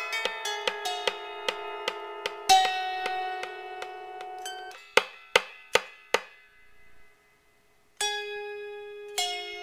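Lap harp plucked in a slow tune, its notes ringing on, with a light tick about two and a half times a second through the first two seconds. Four sharp struck notes come around five seconds in, then a short gap before plucked notes start again near the end.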